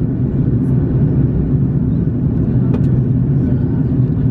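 Steady low rumble of engine and airflow noise inside the cabin of an Airbus A330-900neo in flight.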